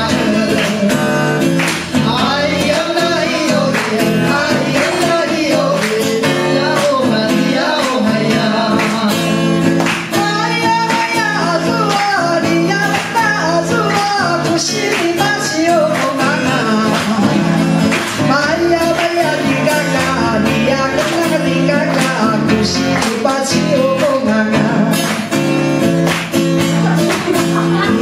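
Live song: a woman singing into a microphone over a steadily played acoustic guitar.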